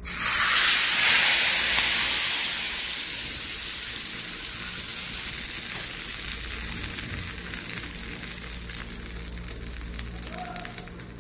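Hot oil tadka with cumin seeds and dried red chillies poured onto dal, sizzling sharply the instant it hits. The sizzle is loudest in the first couple of seconds, then dies down to a quieter, crackling sizzle that slowly fades.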